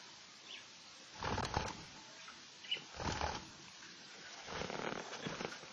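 Pet budgerigars, with a few faint short chirps and three loud bursts of rustling noise.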